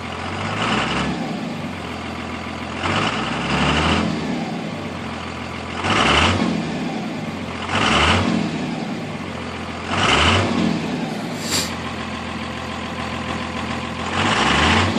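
Cummins diesel engine idling and being blipped up in revs about six times, each rev rising briefly and dropping back to idle. It is running with a misfire from a cracked tip on one injector.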